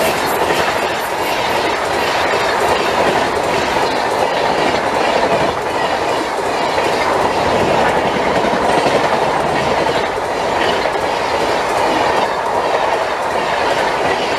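LHB passenger coaches of a Rajdhani Express, hauled by a WAP-7 electric locomotive, rushing past close by at speed. The wheels make a loud, steady rumble and rattle on the track as coach after coach goes by.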